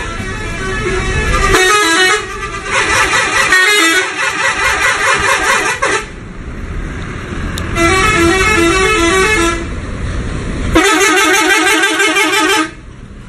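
Indonesian bus 'telolet' horns playing their stepping multi-note tunes in several long, loud stretches, with bus engine noise underneath. The tunes break off briefly about six and ten seconds in and stop shortly before the end.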